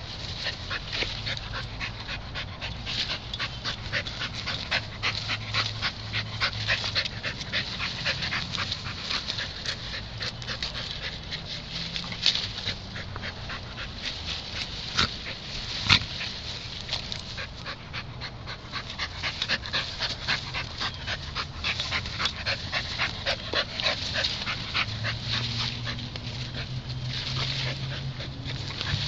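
A dog nosing a brick across bare dirt: a rapid run of small scrapes and knocks, with the dog's own breathing and dog noises. One sharper knock comes about 16 seconds in.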